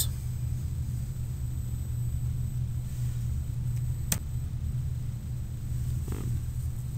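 Steady low background hum with no speech, and a single sharp click about four seconds in, a mouse click as the slideshow advances.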